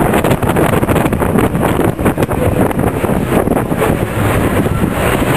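Wind buffeting the microphone from a moving vehicle, with road rumble and frequent small knocks.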